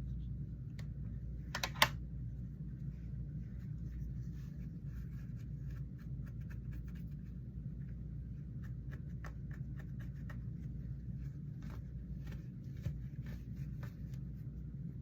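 Small clicks and scratchy taps from a fidget toy being handled close to the microphone, scattered irregularly, with a sharp louder burst of clicks about two seconds in. A steady low hum runs underneath.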